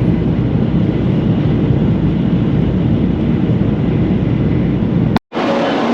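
Steady low rumble of a Shinkansen bullet train running, heard from inside the passenger car. It cuts off suddenly near the end, then picks up again with less bass.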